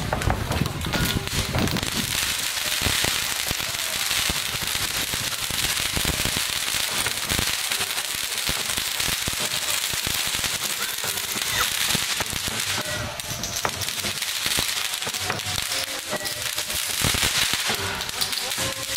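Pyrotechnic spark fountains spraying from a fire performer's hands: a steady, high hiss with dense crackling.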